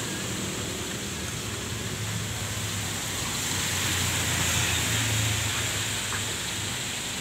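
Steady rain falling on the street and on parked vehicles, as an even hiss, with a low steady hum underneath that swells slightly about halfway through.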